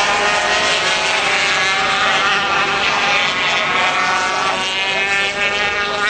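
Two-stroke 250cc Grand Prix racing motorcycles running at high revs, several engine notes overlapping and rising and falling in pitch as they accelerate and change gear.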